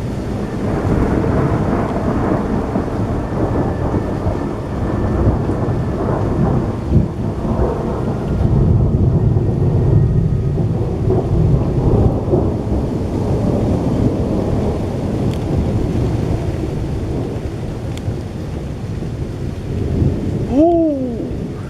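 Thunder from a strong thunderstorm rolling and rumbling for about twenty seconds, swelling loudest about halfway through.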